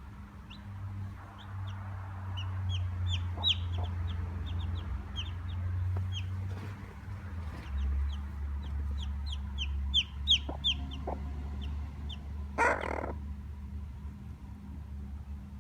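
Chicks peeping rapidly, many short high falling peeps, then falling silent about twelve seconds in, as a short harsh burst, likely the silkie hen's alarm, breaks in. A steady low hum runs underneath.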